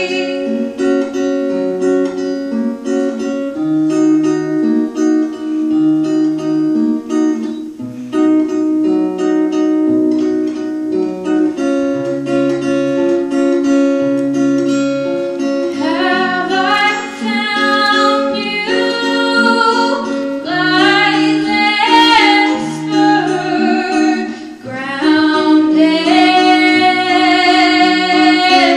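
Acoustic guitar picked in a slow, steady pattern over a stepping bass line, joined about halfway through by a young woman singing with a wavering pitch.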